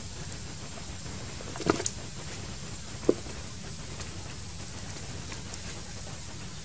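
Beef bone soup boiling in an iron wok over a wood fire, a steady bubbling patter. Two short knocks break in, about a second and a half and about three seconds in.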